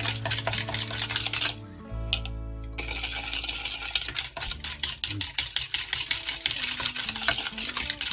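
Wire whisk beating a thin vinegar dressing in a plastic mixing bowl: rapid clicking and scraping strokes, with a short pause about a second and a half in.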